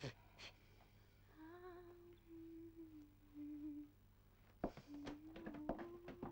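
A person humming a tune in long held notes, with a pause in the middle. A quick run of sharp clicks comes near the end.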